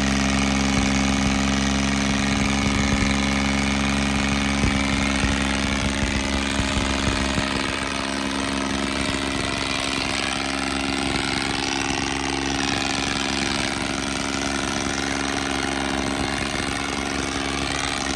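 Tractor diesel engine running steadily at idle; about eight seconds in the low end drops and the sound gets a little quieter as the tractor moves off.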